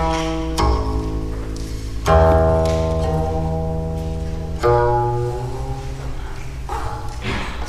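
Solo guqin strung with silk strings: about four plucked notes, each ringing on with a deep, full tone and fading slowly, the loudest about two seconds in.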